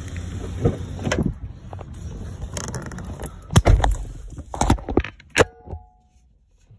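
Clicks and thumps of someone getting into a parked car and shutting the door, with keys jangling; the loudest thump comes in the middle. A short beep sounds near the end, after which it is much quieter.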